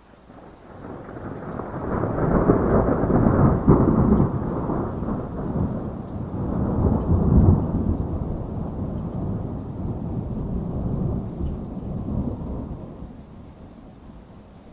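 Rolling thunder over rain: a low rumble that builds over the first two seconds, swells twice, then slowly dies away, with the rain's hiss underneath.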